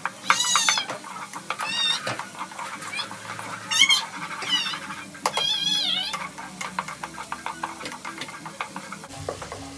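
A spatula stirring and scraping through onion-tomato masala sautéing in a pot, with light clicks and faint sizzling; the masala is cooked down to a paste. Over it, short, high, wavering calls sound several times.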